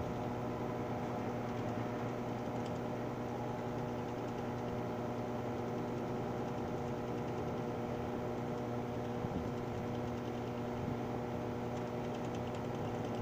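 A steady mechanical hum made of several fixed tones, with a few faint ticks a little past the middle.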